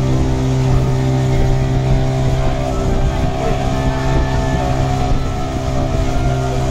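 Small motorboat's engine running steadily under way, heard from on board: a loud, even drone with a strong low hum.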